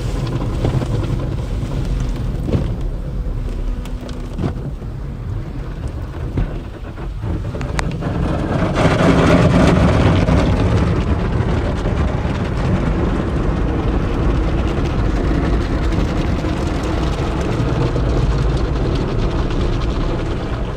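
Car wash running: a steady, dense rumble of machinery and water that swells sharply about nine seconds in and then stays loud.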